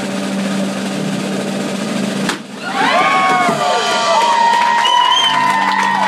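Drum roll, cut off by a single sharp bang about two seconds in; then the audience cheers and whoops loudly.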